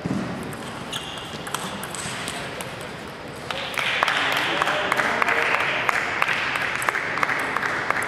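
Table tennis ball clicking off bats and the table in a short rally, then spectators clapping from about three and a half seconds in, the loudest part.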